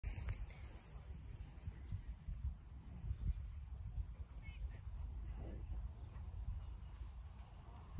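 Wind buffeting the microphone in a low, uneven rumble, with small birds chirping on and off.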